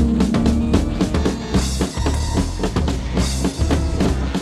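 Abstract noise rock recording with a drum kit beating out a repeated rhythm over a heavy low end.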